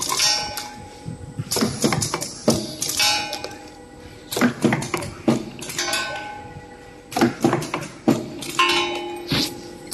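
Peristaltic-pump glue filling machine running, with bursts of metallic clanks and clinks that ring briefly, coming in clusters about every two to three seconds as it cycles.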